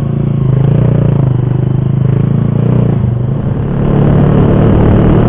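Motorcycle engine running steadily while riding, then louder and fuller about four seconds in after a brief dip.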